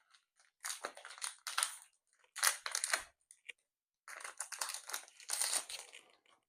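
Foil wrapper of a Pokémon card booster pack crinkling as it is handled and opened, in three bursts: about a second in, around two and a half seconds in, and for about two seconds near the end.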